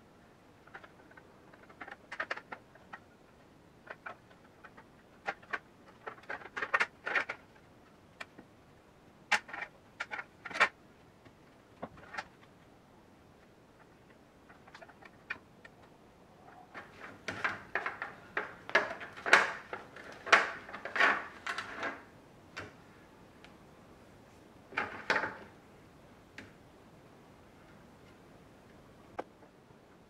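Irregular light clicks, taps and scrapes of small steel padlock parts handled against a plastic tray while cold bluing solution is brushed onto them, thickest in a busy run a little past the middle.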